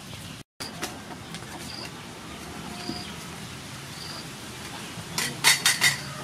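A spoon clinks sharply against a small bowl several times in quick succession near the end, over a low background haze. Short high chirps repeat about once a second. The sound cuts out for a moment about half a second in.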